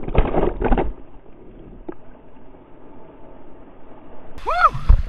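Water splashing and rushing loudly around a GoPro on a rider's head at the end of a water-slide run, dropping after about a second to a quieter, muffled stretch. Near the end comes a short rising-and-falling squeal, then water rushing past and buffeting the microphone as the rider slides down the water slide.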